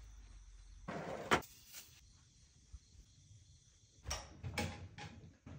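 A glass sliding door being cleaned by hand with a cloth: short rubbing and scraping noises on the glass and frame, with a sharp knock about a second and a half in and a few quick scrubs near the end.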